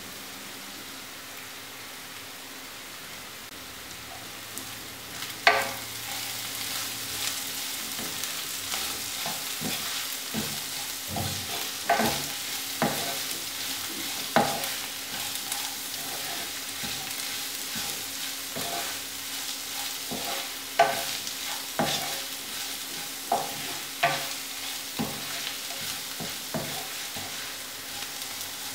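Wooden spatula stirring and scraping in a nonstick kadai, knocking sharply against the pan every second or two from about five seconds in, over the steady sizzle of crushed red chilli, curry leaves, shallots and coconut pieces frying in coconut oil.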